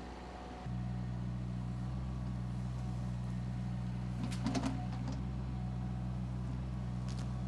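Excavator engine running steadily with a low hum, with a brief clatter about halfway through.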